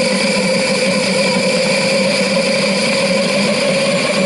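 3D-printed plastic ThermoJet pulsejet running on propane: a loud, steady drone at one pitch with overtones.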